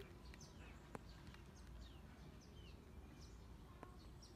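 Faint outdoor birdsong: many short, falling chirps from small birds, with one sharp click about a second in, over a low background rumble.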